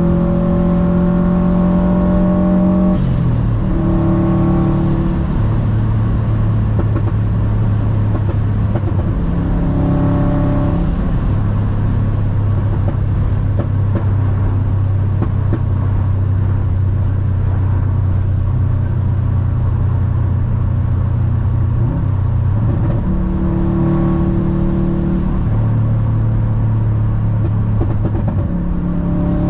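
Subaru WRX STI's turbocharged flat-four with an aftermarket Invidia exhaust, heard from inside the cabin at autobahn speed over road and tyre noise. The engine note rises under acceleration, drops about three seconds in, then holds a steady low drone, changing pitch again after about 23 seconds.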